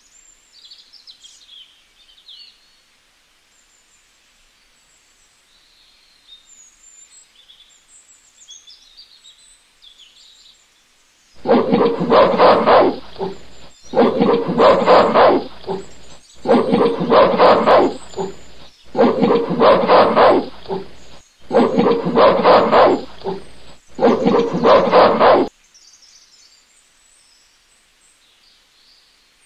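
A recorded gorilla roar played six times in a row, each roar about two seconds long with short gaps between, from about eleven seconds in. Faint bird chirping before and after the roars.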